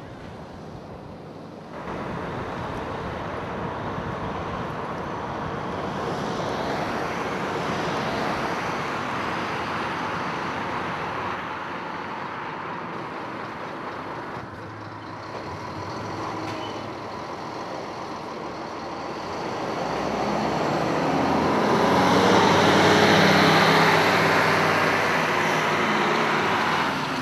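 Outdoor noise of heavy motor vehicles, steady for most of the time and swelling louder for several seconds near the end, then easing off.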